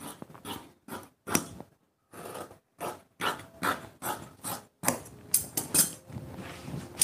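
Fabric shears cutting through folded cloth: a quick, uneven series of short crisp snips and cloth rustles.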